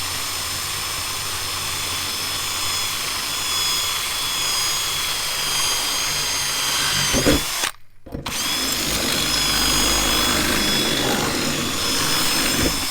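Power drill boring a pilot hole through the bus's metal roof for the jigsaw blade, running with a steady high whine. It stops briefly about eight seconds in, then drills on.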